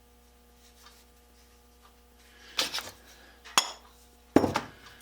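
Steel parts of an old adjustable wrench clinking and knocking together. There is a short scraping clatter about two and a half seconds in, a sharp click a second later, and a louder knock near the end.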